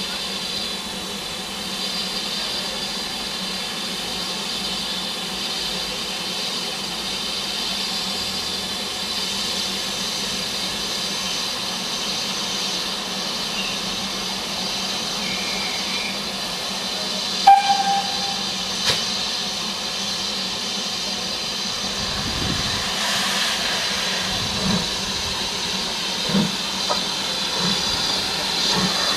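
BR Standard Class 4 tank steam locomotive hissing steam steadily as it stands ready to start, with a sharp knock a little past halfway. In the last several seconds slow, uneven exhaust chuffs begin as it starts to pull away.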